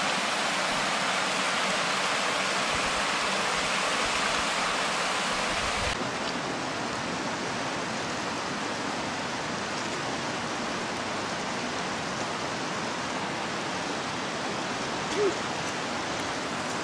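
Creek water rushing and cascading over rocks, a steady hiss that turns duller after a sudden change about six seconds in, with the flow of the Colorado River. A short thump near the end.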